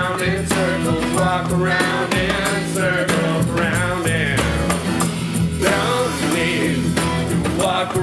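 Live acoustic band playing a song: steel-string acoustic guitar, upright bass and a small drum kit with a steady ticking cymbal beat, under a sung vocal.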